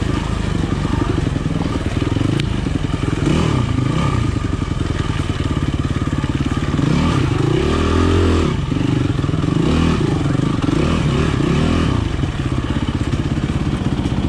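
Yamaha enduro motorcycle engine running under the rider's throttle, its pitch rising and falling several times, with the biggest rev about halfway through.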